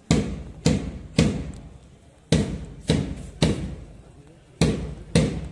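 Marching drum beating time for a parade: loud strikes in groups of three about half a second apart, each followed by a one-beat rest, repeating steadily.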